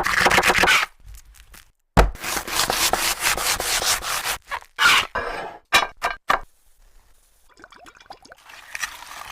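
Rapid rhythmic scraping strokes, several a second, in a short run and then a longer one. These are followed by a few separate clicks and a faint crackle near the end.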